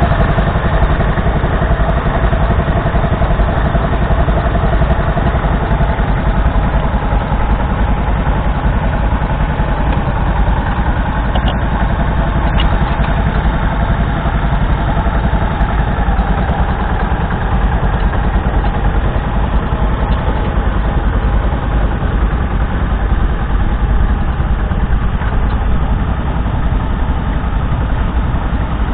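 1969 Martin Markham Colt tractor's 7 hp petrol engine running steadily under load, heard up close, as the small tractor pulls a plough.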